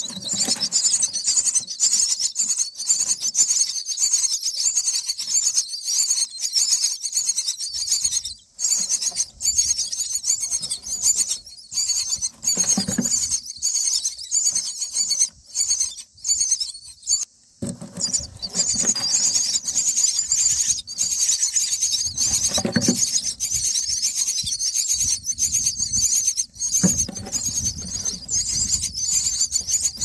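Common myna nestlings begging: a loud, continuous chorus of rapid, high-pitched, rasping calls from chicks gaping for food, broken by a few short pauses.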